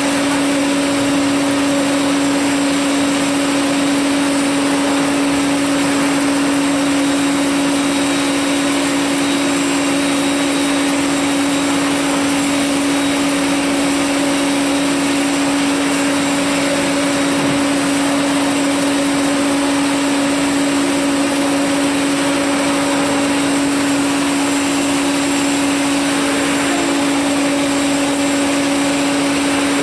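CDMP2012A CNC plate drilling machine running with a steady, even hum and a constant tone, holding its spindle above the plate without cutting.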